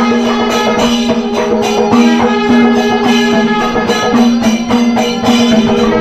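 Traditional Kerala temple music for a puja: drums and jingling percussion under a melody of long held notes that shift in pitch now and then.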